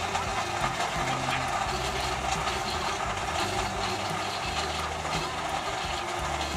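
Countertop blender motor running steadily, blending an iced milk drink.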